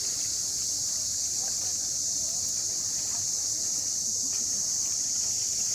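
Cicadas shrilling in a steady, unbroken high-pitched chorus.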